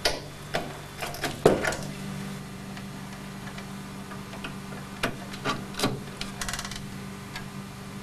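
Clicks and plastic scrapes of AT power connectors being pushed onto a motherboard's 12-pin AT power block, in two clusters: one in the first two seconds, another about five to seven seconds in. A steady low hum runs underneath.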